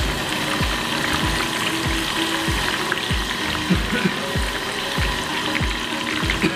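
Bara fritters sizzling and crackling in hot oil in an iron kadai, under background music with a steady beat of about three thumps a second.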